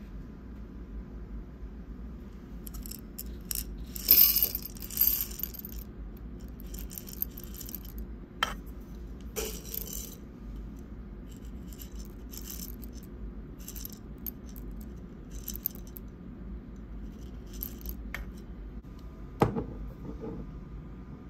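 Whole roasted coffee beans poured into a stainless steel dosing cup on a digital scale, rattling and clinking against the metal. The clatter is loudest about four seconds in, followed by scattered single clinks as a few more beans are added, and a dull knock near the end.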